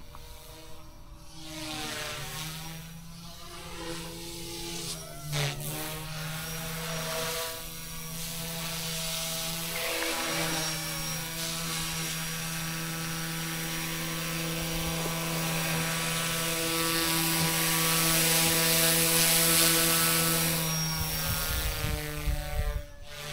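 Eachine E120S small electric RC helicopter in flight: a steady whine from its motor and rotor blades, with overtones that swirl and shift as it moves about and banks. It grows louder as it comes close over the last third, with a brief sharp sweep in pitch about five seconds in, and drops off suddenly near the end.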